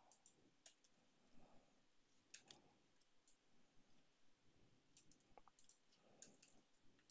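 Faint, scattered clicks of a computer mouse and keyboard during code editing, about a dozen spread irregularly, over near-silent room tone.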